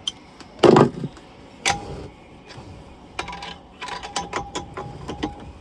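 Hand tools knocking and clicking against metal in a boat's diesel engine bay while a dropped socket is fished off the flywheel. A few sharp knocks come in the first two seconds, then a run of light ticks with a brief metallic ring.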